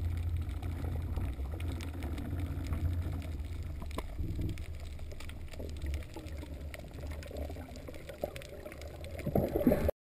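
Underwater ambience picked up by a camera in a waterproof housing: a steady low rumble of water with scattered faint clicks. A louder surge of water noise comes near the end, then it cuts off abruptly.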